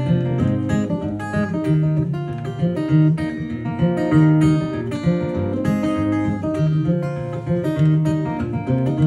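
Solo steel-string acoustic guitar playing an instrumental tune: quick plucked notes over ringing bass notes.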